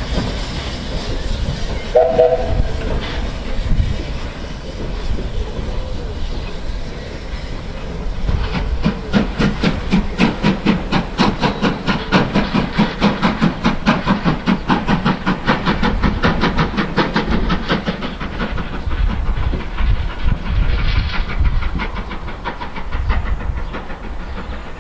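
BR Standard Class 5MT steam locomotive 73096 starting a train: a short two-note whistle about two seconds in, then from about eight seconds a fast, even run of exhaust chuffs, roughly five a second, that fades near the end as the locomotive draws away, over the rumble of the coaches' wheels.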